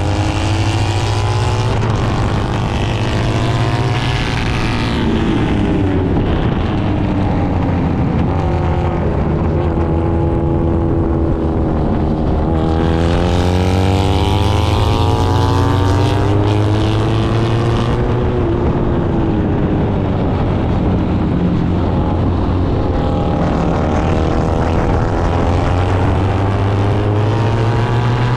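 Racing motorcycle engine at speed, heard close from an onboard camera. Its pitch climbs under acceleration and falls off through shifts and braking, again and again. Wind rushes over the microphone, strongest about halfway through.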